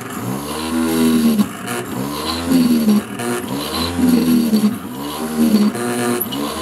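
Small bench drill press running and drilling into a model ship's plywood hull skeleton, its motor hum rising and falling in pitch about every one and a half seconds as the bit is pressed in and lifted out for each hole.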